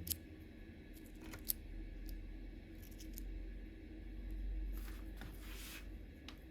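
Small clicks of tools and brake parts being handled during work on a bicycle rim brake, with a brief rubbing or scraping sound near the end.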